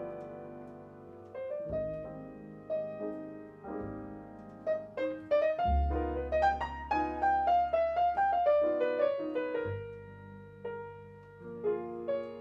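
Grand piano playing jazz: sparse notes at first, then in the middle a run of notes climbing and falling back over about four seconds, the loudest part, with deep low notes held underneath.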